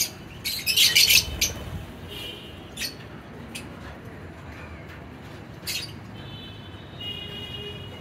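Lovebirds chirping and squawking in short, sharp, high calls, with a loud cluster of shrill squawks about a second in and a longer held call near the end.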